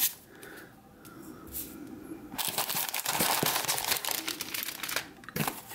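Brown kraft packing paper rustling and crinkling as hands unwrap it inside a cardboard box. It is soft for the first couple of seconds and louder and busier from a little before halfway through.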